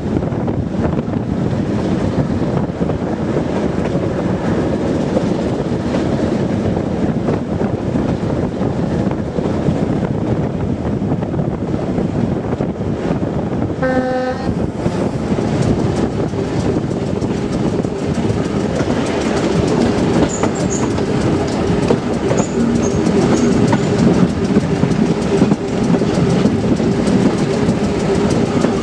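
Class 207 'Thumper' diesel-electric multiple unit running along the line, its English Electric engine and wheels clattering over the rail joints. About halfway through there is one short horn blast. A steady low hum sets in during the second half.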